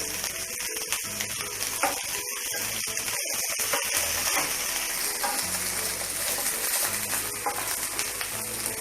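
Shallots, garlic and ginger sizzling steadily as they fry in hot coconut oil in a pan, over background music.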